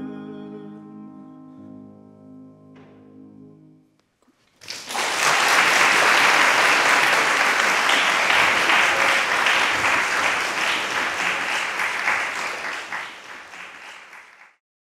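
Piano's closing chords ringing out and fading away over about four seconds, then after a brief pause an audience applauding steadily for about ten seconds, cutting off suddenly.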